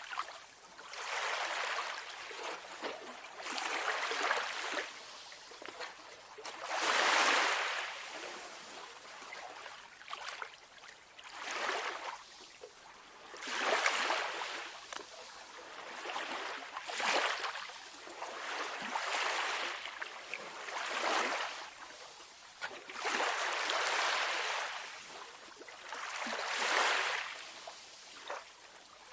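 Calm sea waves washing in and drawing back, a soft surge of hiss every two to three seconds, some swells louder than others.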